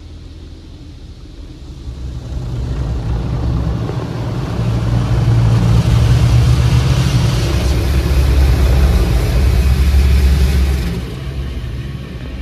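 Car wash equipment running over the vehicle: a low rumble with a broad rushing spray. It builds over a couple of seconds, stays loud for several seconds, then eases off near the end.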